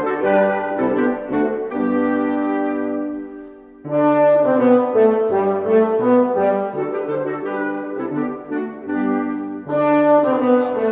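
Instrumental music led by brass, playing melody notes, with a brief pause about four seconds in before it resumes.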